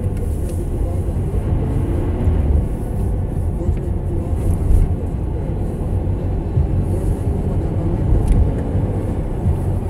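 Toyota Corolla driving on a slushy, snow-covered road, heard from inside the cabin: a steady low rumble of tyre, road and engine noise.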